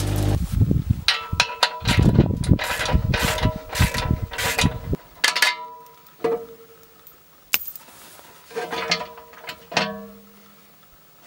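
Steel clanks and clinks with short metallic ringing from a Farma insert bucket being handled and unpinned on a forestry grapple. A dense run of knocks over a low rumble fills the first five seconds, then a few single clinks follow, spaced a second or so apart.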